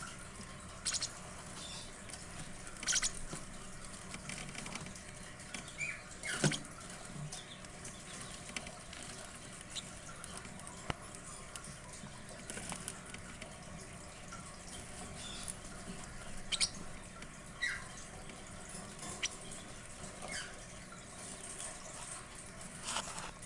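Baby parrotlets moving about in their brooder: scattered small scratches, taps and rustles, with a few brief faint squeaks.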